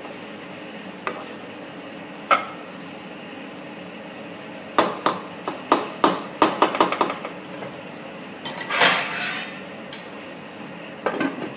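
Spatula knocking and scraping against a non-stick frying pan while stirring vegetables. There are a couple of single taps, then a quick run of about eight sharp clicks in the middle, a short scrape, and a few more clinks near the end.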